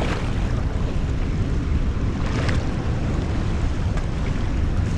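Wind buffeting the microphone over open ocean swell, a steady low rush, with water sloshing and splashing close to the camera: one splash at the start and another about halfway through.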